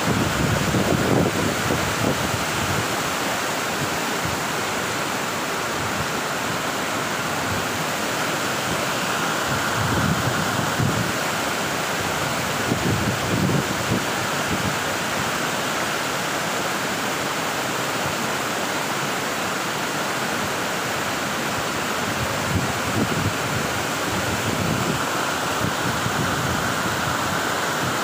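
Steady, loud white-noise rush of Sekumpul Waterfall and the rapids of its stream tumbling over boulders. A few brief low buffets of wind on the microphone come near the start, around the middle and near the end.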